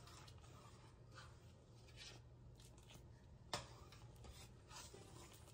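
Near silence: faint scattered handling noises, with one sharp click a little past the middle.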